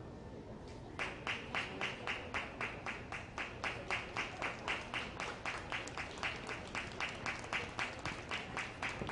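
Hands clapping in a steady rhythm, a little over three claps a second, starting about a second in.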